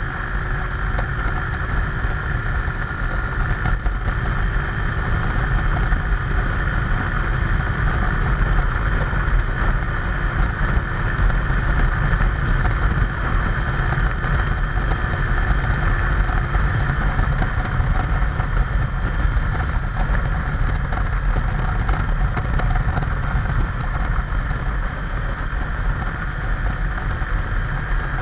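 Motorcycle riding at a steady easy pace: the engine running under a constant rumble of wind on the bike-mounted camera's microphone.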